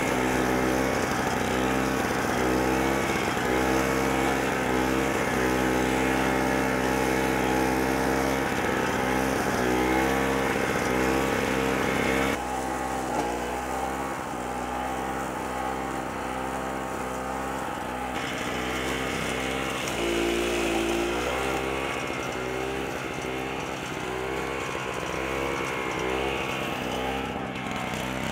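AS-Motor AS63 high-grass mower's petrol engine running under load while it cuts tall weeds. Its pitch dips and recovers now and then as the grass loads the blade.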